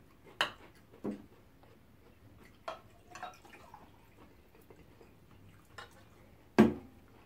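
Table sounds of eating: a few scattered clicks and taps of metal cutlery against the dishes, with one sharper knock near the end, and water being poured into a drinking glass from a pitcher.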